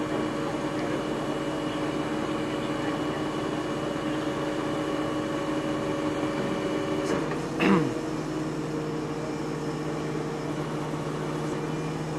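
Heavy truck engines running steadily with a constant hum. About seven and a half seconds in comes a short squeal sliding down in pitch, the loudest moment, and the engine note changes just after.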